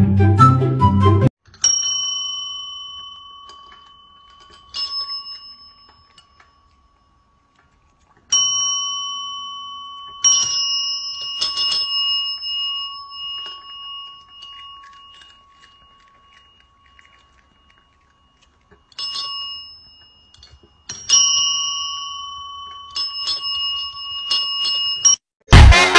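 Chrome desk service bells pawed by two cats: single dings at irregular intervals with long gaps, each ringing and slowly fading. A few strikes come in quick succession. Music is heard briefly at the start, and a loud burst of sound comes just before the end.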